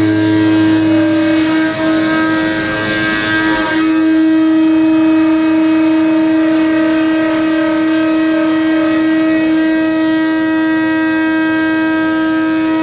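A ceramic-insert milling cutter on a Starrag LX 251 cutting an Inconel turbine blade. It gives a steady, whining tone over a hiss from the cut, with one brief dip about two seconds in.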